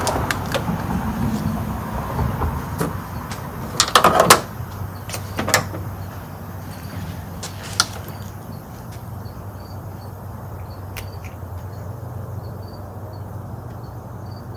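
A few sharp clicks and knocks from hands working on an outboard motor's ignition, the loudest cluster about four seconds in, over a steady low hum.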